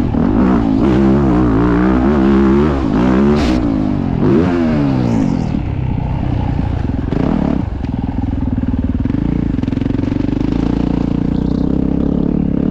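Yamaha YZ450F motocross bike's four-stroke single-cylinder engine heard onboard, revving up and down in quick throttle blips for the first half. It then settles into a steadier, lower drone, with clatter from the bike over the track.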